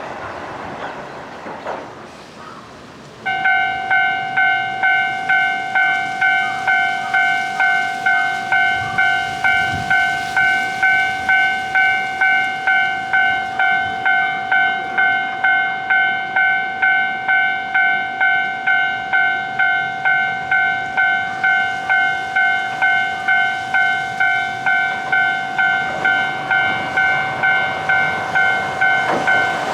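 Japanese railroad crossing warning bell starting up about three seconds in, then ringing a steady, even "kan-kan" of a little under two strokes a second. It signals that a tram is approaching and the crossing is closing.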